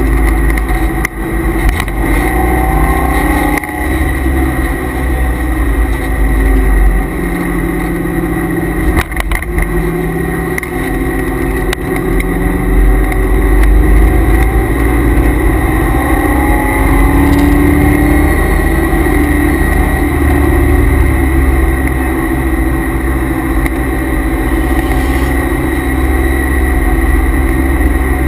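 Cabin sound of a C5 Corvette Z06's LS6 V8 under hard track driving, its revs rising and falling through the gears. Over it runs a steady high whine that the owner puts down to the noisy transmission and differential coolers.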